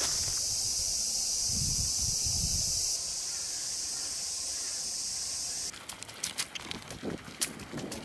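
Steady high-pitched insect chorus in summer woodland, even and unbroken. About two-thirds of the way in it cuts off suddenly and is replaced by quick, irregular taps and scuffs of footsteps on a paved path, sped up.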